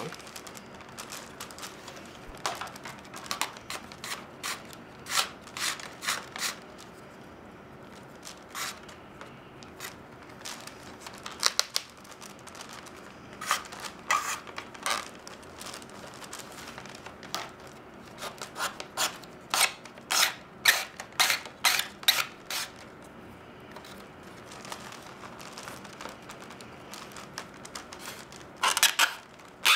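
Flat reed lashing being drawn through the weave and pulled tight around a reed basket rim: short scraping, crackling rustles that come in clusters with pauses between, the loudest cluster near the end.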